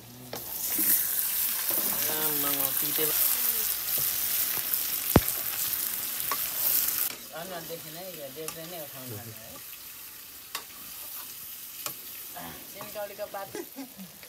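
Raw chicken pieces dropped into hot oil in a steel wok, setting off a loud sizzle that hisses for about seven seconds, with one sharp knock about five seconds in. The sizzle then drops lower as the meat is stirred with a ladle, the ladle clinking now and then against the wok.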